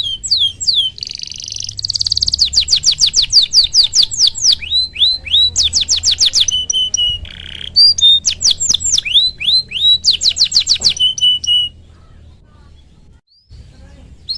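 Canary singing a long, loud song of rapidly repeated downward-sweeping whistles and trills, falling quiet near the end.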